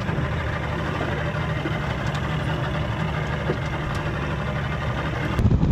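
Boat engine idling steadily. Near the end it gives way abruptly to louder, gusty wind rumble on the microphone.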